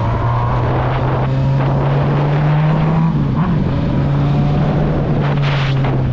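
Honda Hornet motorcycle engine running steadily under way, with wind on the microphone. The engine note drops a little about three seconds in, and a short rush of noise comes near the end.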